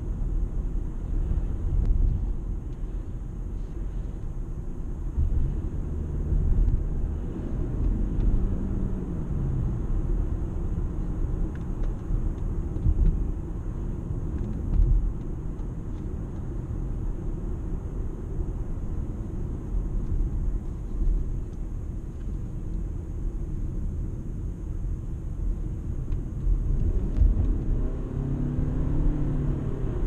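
Toyota Camry Hybrid on the move: a steady low rumble of road and drive noise, with the engine note falling about a third of the way through and rising and falling again near the end.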